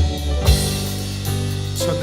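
Worship band playing an instrumental passage with guitar, keyboard and drum kit, with a drum hit about half a second in.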